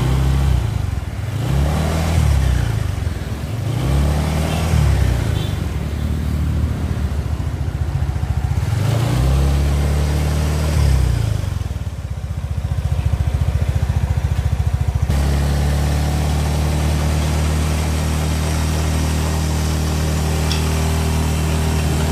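Suzuki Nex scooter's single-cylinder four-stroke engine and CVT revved in several short throttle blips, then held at a steady speed. It runs smooth, with no growling or clacking from the CVT block, now that the worn pulley-shaft and ratio-box bearings have been replaced.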